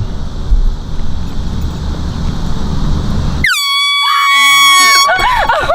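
A handheld squeeze-top air horn suddenly blares about three and a half seconds in: one long, loud, steady blast that is still sounding at the end, set off to scare someone. Before it there is only low background noise, and a voice cries out under the blast.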